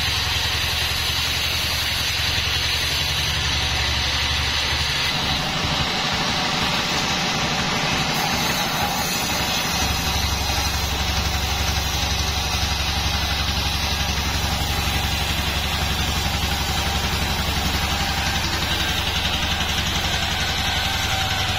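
Band sawmill running, with a steady low engine-like drone under a hiss from the blade. The low drone turns rougher for a few seconds about five seconds in, then settles again.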